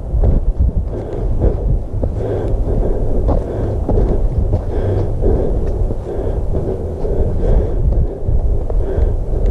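Wind buffeting the microphone of a camera moving along a dirt trail: a steady low rumble, with a soft crunch repeating about every half second.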